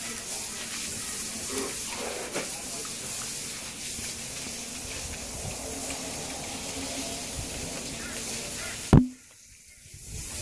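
Steady hiss of spraying water. About nine seconds in, a sharp loud click cuts it off, and the level dips briefly before the hiss returns.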